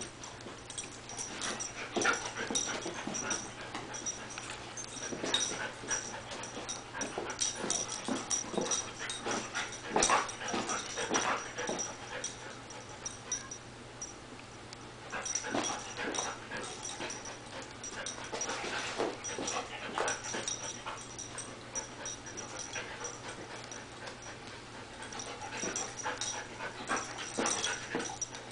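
Golden retriever making short play noises in irregular bursts as she tries to get a cat to play, with a few quieter stretches between the bursts.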